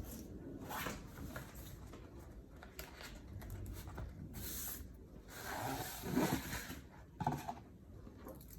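Packaging being handled: rustling of paper or plastic with light knocks and taps, the longest rustle a little past the middle.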